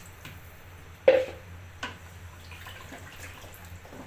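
Water being stirred into beef and spices in an aluminium pressure cooker: a sharp knock of a utensil against the pot about a second in, a lighter knock shortly after, then scraping and sloshing.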